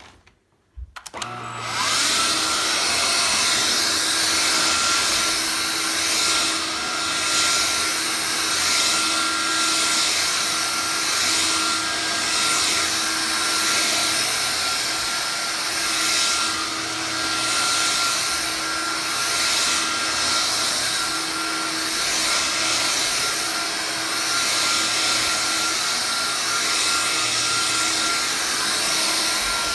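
Vax Air Cordless Lift cordless upright vacuum cleaner switching on about a second in and then running steadily over a rug, a dense rush of airflow with a steady high whine, swelling and easing slightly every couple of seconds.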